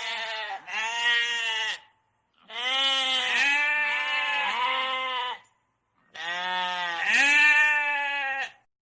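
Sheep bleating: three long, quavering bleats with short pauses between them.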